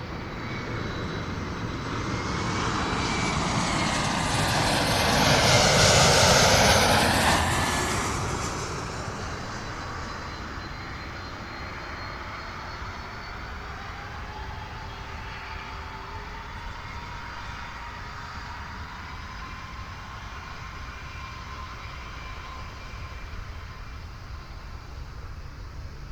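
Airliner on landing approach passing low overhead: its engine noise swells to a peak about six seconds in with a sweeping, phasing rush, then fades to a steadier, quieter engine sound with faint held tones.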